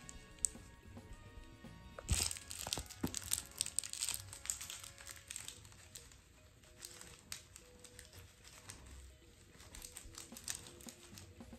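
A knitted cloth toy rustling and scuffing over a tiled floor as it is swished about and a cat swats at it, with scattered light knocks, the sharpest about two seconds in. Faint background music underneath.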